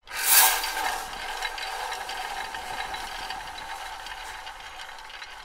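Film projector sound effect: a steady mechanical rattle and clatter. It starts suddenly with a brief louder burst, then slowly fades.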